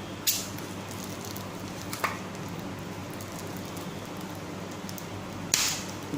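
A steady low hum with a few short, sharp crackling handling noises: one about a quarter second in, a fainter one about two seconds in, and the loudest near the end.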